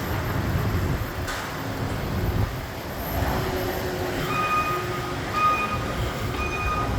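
Steady street traffic rumble, joined about four seconds in by a construction vehicle's backup alarm beeping about once a second.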